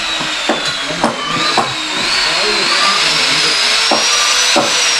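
Handheld electric power tool running without a break, its high motor whine slowly rising and then falling in pitch, with a few short knocks.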